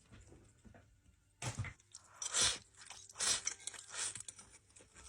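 Close-miked chewing of pork with crunching bites. After a quiet first second and a half, the bites come about once a second.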